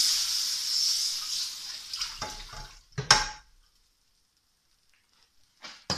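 Hot frying-pan fat hissing as it is poured into water, the hiss fading away over about three seconds, then a sharp clank about three seconds in and a short knock near the end.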